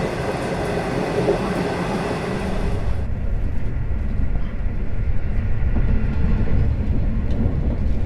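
Passenger train running on the rails, heard on board as a steady rushing noise. About three seconds in it changes abruptly to a low rumble without the high hiss.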